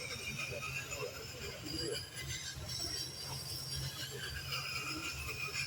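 Slow-speed wet-stone sharpener's motor humming steadily as a steel blade is ground against the turning stone, with a faint thin whine from the steel on the stone, working up a burr on the edge.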